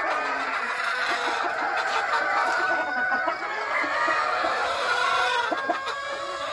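Caged gamefowl chickens clucking and calling, many birds at once, in a steady overlapping din.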